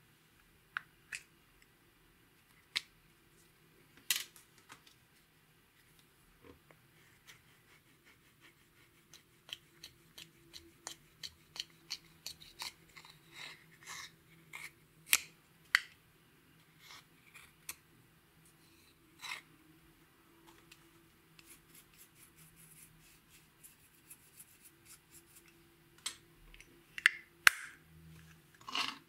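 Plastic eyeshadow compact clicking as it is handled and opened, then a small tool scraping and breaking up the pressed powder eyeshadow in its pan, giving a run of small scratchy clicks and crunches. There are several sharper clicks of the compact near the end.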